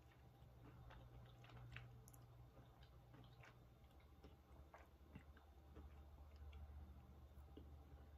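Faint chewing of a white almond-bark candy bar studded with tiny pretzel pieces: soft, irregular crunches and mouth clicks over a low steady hum.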